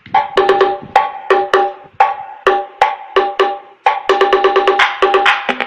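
Loud music played back through a newly built mini paredão speaker box with tweeters and a horn driver, on its first test: a beat of quick, sharp percussive hits with a ringing tone, starting abruptly.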